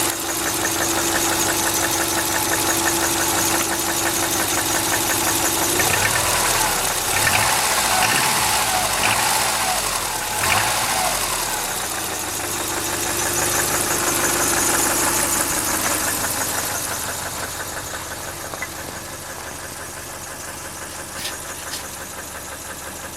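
2000 Subaru Outback's EJ25 2.5-litre flat-four engine running with a steady, rapid knock, which the owner can't place as rod knock or piston slap; the knock is now present warm or cold. The sound shifts unevenly for several seconds in the middle and grows fainter near the end.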